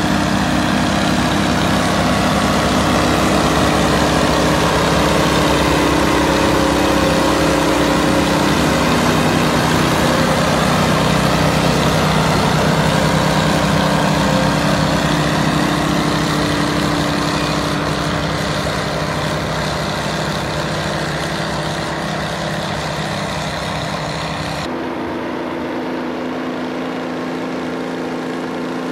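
Twin Detroit Diesel 6-71 two-stroke diesel engines of a Chamberlain tractor running steadily. The engine sound fades a little in the second half. About 25 s in it changes abruptly to a duller Detroit Diesel engine sound from another clip of a Chamberlain tractor.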